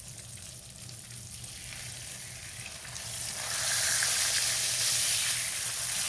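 Food frying in hot oil, a steady sizzling hiss that grows louder about three seconds in.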